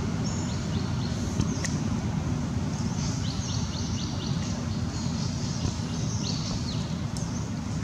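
Outdoor ambience: a steady low rumble under small birds chirping in short runs of quick high notes, three times, with one sharp click a little over a second and a half in.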